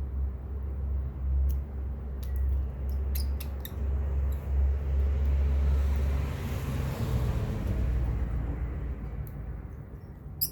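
A low steady rumble, with a few small sharp clicks about two to four seconds in from tiny screws and a precision screwdriver as the iPhone 8's heat shield is screwed back down.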